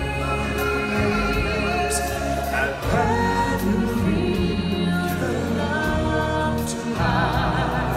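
Live stage-show song: a choir of voices singing over musical accompaniment, with long, wavering held notes.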